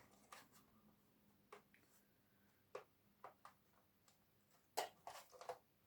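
Near silence with scattered faint clicks and taps from card and a plastic craft board being handled, a little busier near the end.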